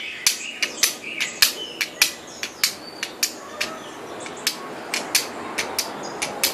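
Flint struck with a steel striker: a quick, uneven run of sharp clicking strikes, about three a second, throwing sparks onto steel wool tinder to start a fire.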